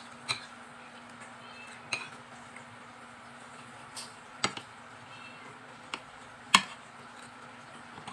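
Metal spoon and fork clinking against a bowl while eating, about six sharp clinks, the loudest about six and a half seconds in.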